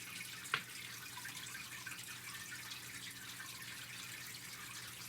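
Steady low background hiss with a faint electrical hum, broken by a single sharp click about half a second in.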